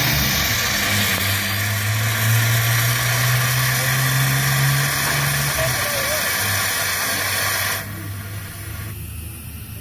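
Large low-pitched whistle blown on a supply of air or steam: a loud rushing hiss over a deep steady tone, with the upper of its two low notes dropping out a little before the end, cut off sharply about eight seconds in.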